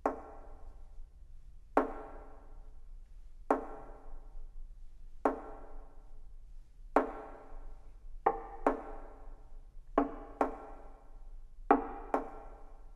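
Sharp percussive notes played on string-quartet instruments, each ringing briefly and dying away. They fall singly about every one and three-quarter seconds, then in close pairs from about eight seconds in.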